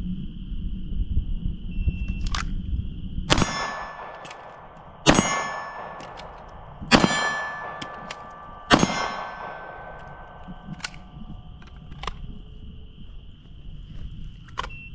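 Four sharp pistol shots, about two seconds apart, each followed by the ringing of a struck steel target. There are a few fainter clanks between them.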